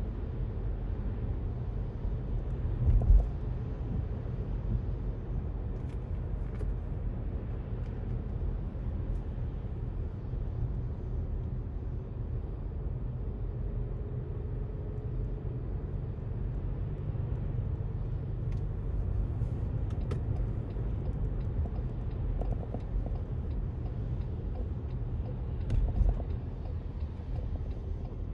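Steady low rumble of road traffic, with two brief louder low thumps, one about three seconds in and one near the end.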